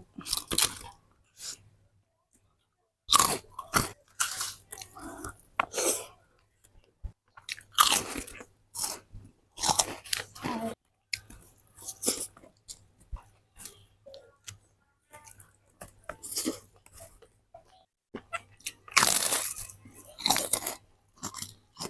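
Crunching and chewing of kerupuk crackers with rice, in irregular bites with short pauses.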